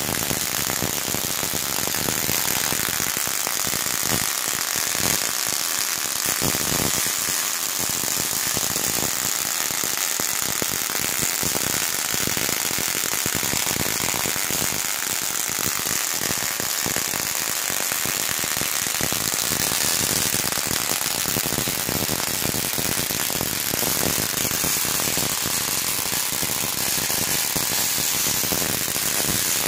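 Spark-gap Tesla coil running: the spark gap and the arcs from the top of the coil crackle in a steady, dense buzz.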